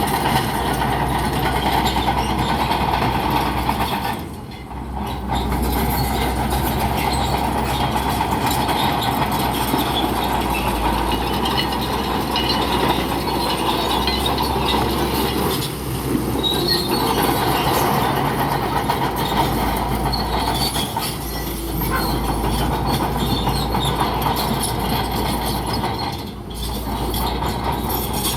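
Crawler bulldozer at work: its diesel engine runs under load while the steel tracks squeal and clank. The din eases off briefly four times.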